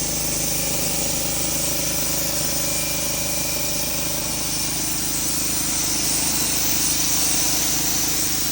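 A small engine-driven machine running steadily with a constant hum and a strong hiss over it.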